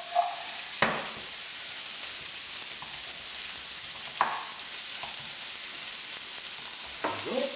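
Diced courgettes sizzling steadily in hot olive oil in a frying pan, with a few short knocks as they are stirred with a wooden spatula, about one, four and seven seconds in.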